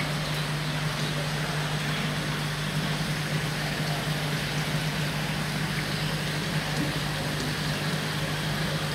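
Steady rush and splash of water pouring from a return pipe into a koi fry tank, over a constant low hum.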